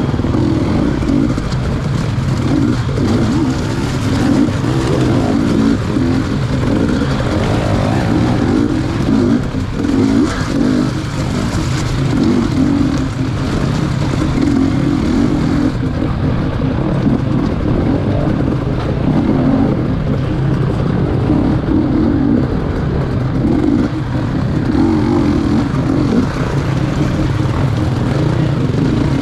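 GasGas EC250 two-stroke dirt bike engine ridden hard, the throttle opening and closing every second or two so the engine note rises and falls without a break.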